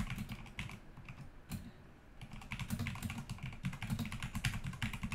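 Typing on a computer keyboard: a quick run of keystrokes with a brief pause about two seconds in.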